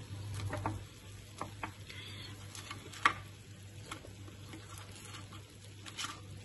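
A kitchen knife clicking and scraping against a non-stick appe pan as dal appe are prised loose and flipped one by one: a scatter of small ticks and knocks, with one sharper click about three seconds in.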